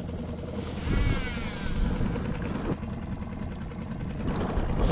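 Wind buffeting the microphone and water moving around a small skiff, with a baitcasting reel being cranked in fine rapid ticks. A brief wavering whine comes in about a second in.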